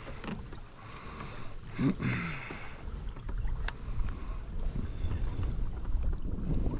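Wind rumbling on the microphone, growing stronger after about three seconds, over water lapping against a kayak hull. Two sharp clicks come near the middle.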